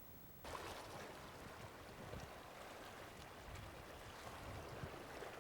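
Steady rush of the Madison River's flowing water, starting abruptly about half a second in.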